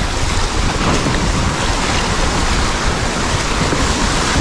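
Rushing white water of a small river rapid, churning right around a kayak as it runs a ledge. Steady and loud.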